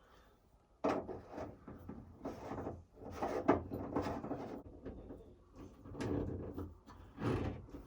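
Screws being driven into the plastic shower-head wall mount to fix it to the RV shower wall: a run of irregular scraping and creaking strokes that starts about a second in.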